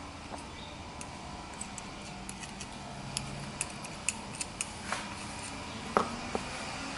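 Small, irregular metallic clicks and taps as steel anti-squeal shims are handled and fitted onto rear brake pads, a few sharper ones in the second half, over a steady low hum.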